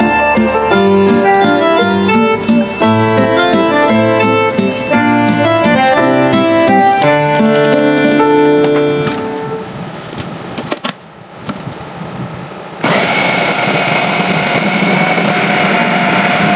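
Instrumental background music, fading out about nine seconds in. After a few quieter seconds an electric food chopper switches on abruptly and runs steadily with a motor whine, mincing raw chicken and spices.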